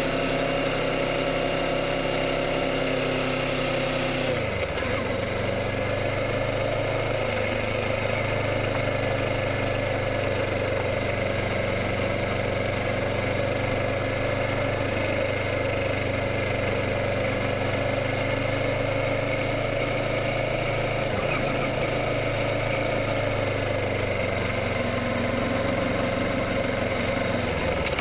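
Kawasaki Ninja 650's parallel-twin engine running steadily, with a haze of wind and road noise. The engine note changes abruptly about four seconds in, then holds steady.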